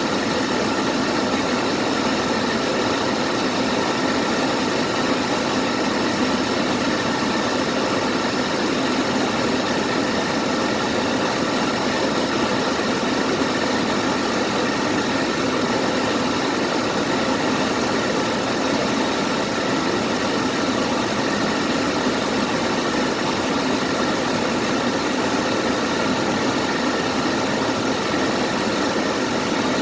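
Vehicle engine running steadily with an even, unchanging noise and faint constant tones. The engine's alternator is failing, its charging voltage sagging.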